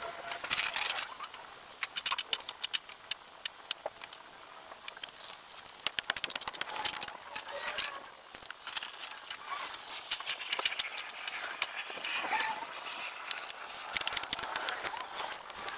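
Worksite sound of firewood being stacked, played back about twenty times faster than real time: a dense, uneven run of quick wooden clacks and knocks mixed with squeaky, chirping snatches of sound.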